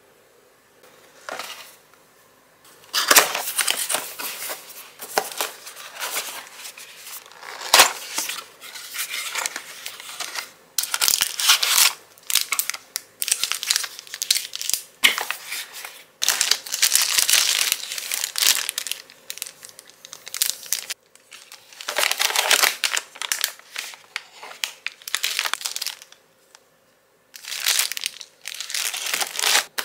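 Clear plastic packaging rustling and crinkling as it is handled and unwrapped, in irregular bursts that start about three seconds in, with a couple of brief pauses.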